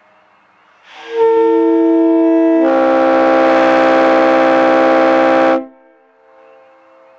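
Leslie RS-3L three-chime locomotive air horn blown on compressed air. It comes in a second in with two notes and swells about a second and a half later into a loud, full chord of several notes. The chord holds steady and cuts off sharply a little over five seconds in. A fainter horn chord sounds in the distance before and after the blast.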